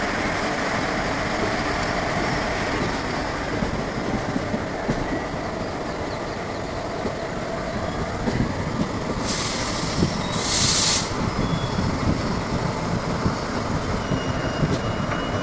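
Passenger coaches of an Indian Railways express train rolling past on the rails and drawing away: a steady rumble with wheel clatter over the track. Two short hisses come about nine and ten seconds in.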